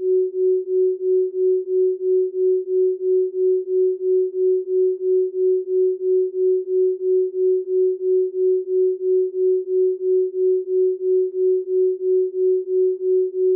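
Isochronic tone: a single pure tone pulsing on and off in even beats, about two and a half a second, used for brainwave entrainment.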